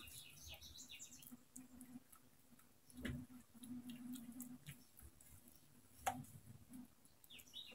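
Very quiet handling of soft oiled dough being folded and rolled by hand on a worktop: faint scattered ticks, with a sharper tap about three seconds in and another about six seconds in, over a faint low hum.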